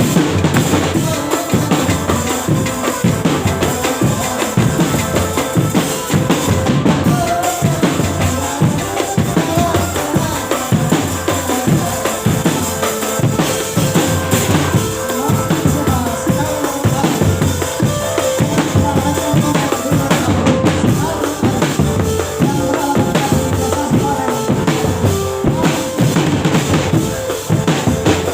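Loud music led by drums: a steady, driving beat of bass drum and snare strikes with other instruments playing over it.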